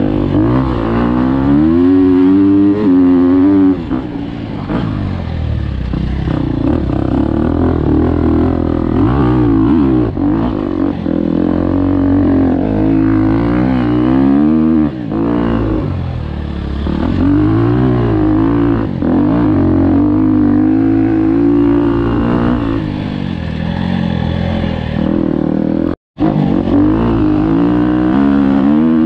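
Dirt bike engine running under load on a dirt trail, its pitch rising and falling again and again with throttle and gear changes. The sound cuts out completely for an instant near the end.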